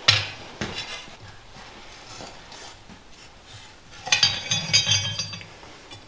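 Loose steel pieces clinking and clanking: a sharp knock at the start, then a cluster of ringing clanks about four seconds in.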